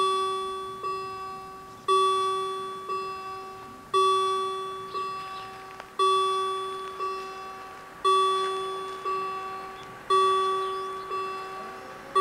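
German level crossing warning bells start ringing as the crossing activates: a loud ringing strike about every two seconds, each followed by a softer strike just under a second later, every strike dying away before the next.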